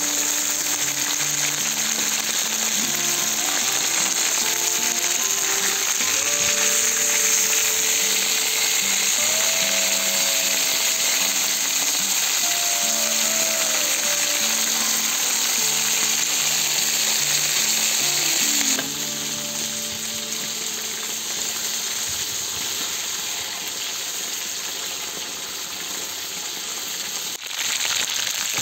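Chicken pieces sizzling in hot oil in a cast-iron kazan as they fry, with a quiet background melody. The sizzle drops abruptly to a lower level about two-thirds of the way through.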